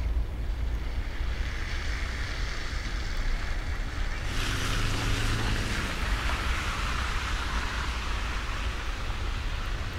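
Outdoor ambience in a snowy park: a steady low rumble, with a hiss that swells sharply about four seconds in and eases off near the end.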